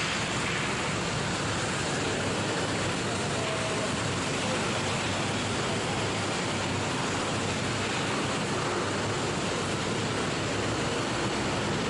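Steady rushing vehicle noise at an even level, with no distinct engine note or separate knocks.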